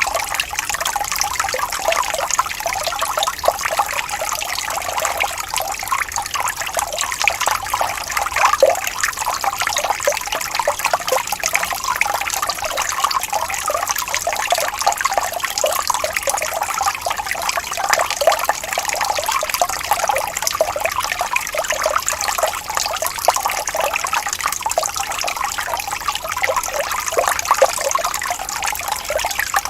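Falling water trickling and splashing steadily, a dense run of small splashes without pause.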